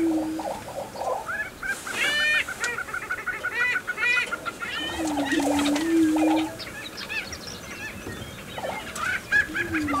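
Lesser and greater prairie chickens displaying on a lek. A low hooting boom sounds near the start, again midway and once more at the end. Between the booms come bursts of quick bubbling notes and long runs of high cackling and whooping calls.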